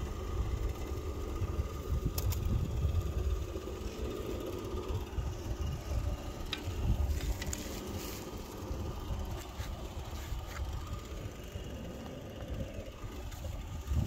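Uneven low rumble of wind buffeting the microphone, with a few faint clicks from gear being handled.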